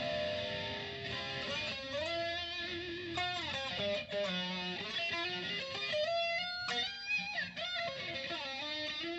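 Distorted electric guitar played through a STRICH analog flanger pedal: single-note lead lines with string bends up and down in pitch, the flanger's sweep colouring the distorted tone.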